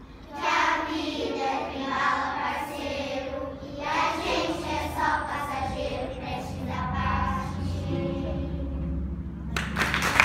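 A children's choir singing the closing lines of a song in Portuguese. About nine and a half seconds in, the singing stops and applause breaks out.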